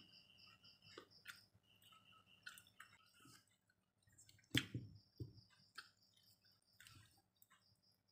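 Near silence with faint eating sounds: quiet chewing of fried anchovies and rice, with soft scattered clicks of fingers against a plate, and one brief louder sound about four and a half seconds in.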